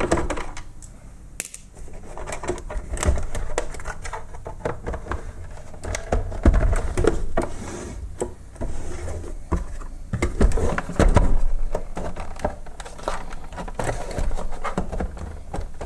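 A screwdriver and hands working on the plastic housing of a robot vacuum cleaner, undoing a last screw and trying to lift off the cover. Irregular clicks, taps and knocks run throughout, with a few duller thumps.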